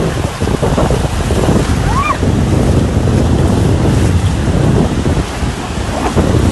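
Ocean surf washing in at the water's edge, with heavy wind rumbling on the microphone. A short high rising-and-falling call sounds about two seconds in.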